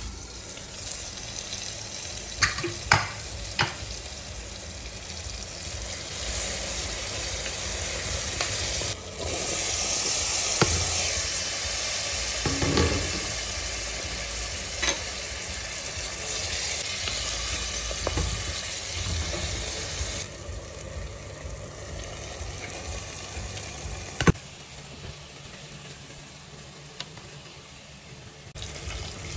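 Tomato masala sizzling in an aluminium pressure cooker while diced potatoes and moong dal are stirred in with a spoon. The sizzle is louder in the middle, and the spoon knocks sharply against the pot a few times near the start and once near the end.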